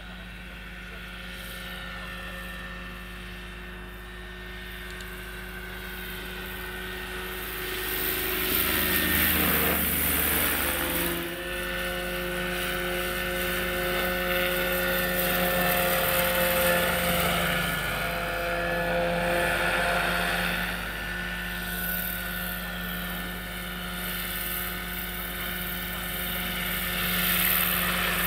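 Roban Bo-105 Superscale 800 electric RC scale helicopter flying, with a steady whine from its Hacker electric motor, drivetrain and rotors. It gets louder from about eight seconds in, with a sweep in pitch around ten seconds as it passes close, and swells again near the end.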